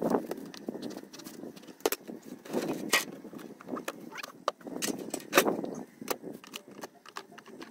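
Beehive boxes and lids being handled: a run of sharp wooden knocks and clicks, the loudest about five seconds in, with rustling and scraping between them.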